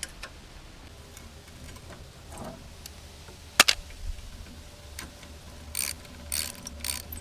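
Socket ratchet clicking in quick strokes during the last second and a half as it backs out a bolt, after faint ticks and a single sharp click about three and a half seconds in.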